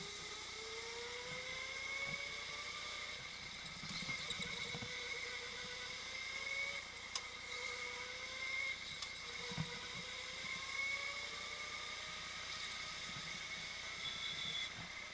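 Go-kart motor running hard on track, its whine climbing in pitch several times as the kart speeds up along each straight and dropping back for the corners, over a steady high whine, with a few short knocks.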